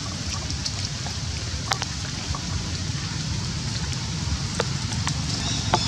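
Steady outdoor background noise: a low rumble under a faint hiss, with scattered sharp little clicks and ticks, one clearer about two seconds in and others near the end.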